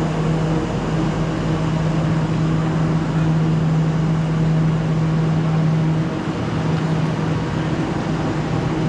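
Steady mechanical hum from a standing green passenger train at the platform, a low drone over a broad rush of noise that dips briefly about six seconds in.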